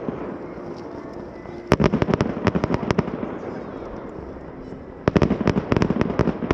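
Fireworks display: two volleys of rapid sharp crackling bursts, one about two seconds in and another about five seconds in, with a low rolling rumble between them.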